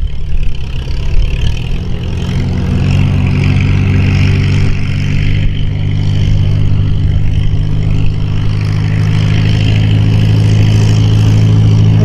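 Farmall farm tractor's engine running hard under load as it pulls a sled, settling from about two seconds in into a loud, steady note that holds at one pitch.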